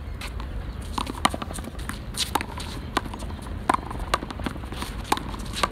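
One-wall handball rally: a small rubber ball slapping off gloved hands and the concrete wall, mixed with quick sneaker steps and scuffs on the court. The hits and steps come as a string of sharp, irregular clicks over a low, steady rumble.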